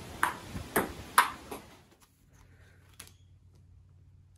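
Table tennis rally: the ball clicks sharply off paddles and table about twice a second, about five strikes, stopping about two seconds in. One more single click follows about three seconds in.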